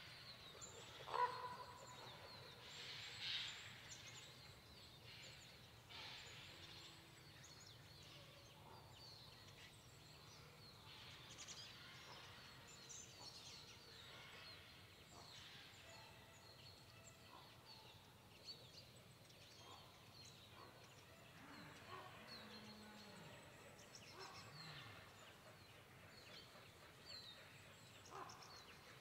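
Quiet autumn pine-forest ambience with scattered faint bird calls, a few louder short calls in the first few seconds. About two-thirds of the way through come a few faint low sliding calls that fit distant red deer stags roaring in the rut.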